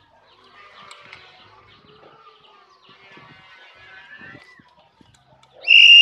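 Black-naped oriole giving one loud whistled call near the end, held on one pitch and then sliding steeply down. Before it there is faint, scattered bird chirping.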